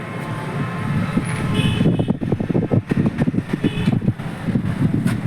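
A motor vehicle engine running close by, with a rapid uneven pulse that grows louder about two seconds in.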